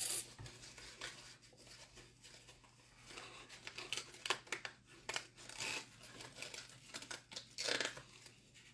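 A small cardboard box being carefully worked open with a blade: scattered scraping and clicks of card, and short rustles of packaging, with a louder rustle near the end as the wrapped item is pulled out.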